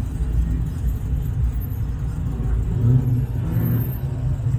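Low engine sound of a classic car driving slowly past, a little louder about three seconds in.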